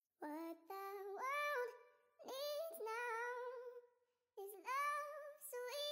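A high voice singing a short tune with no accompaniment, in three phrases with short pauses between.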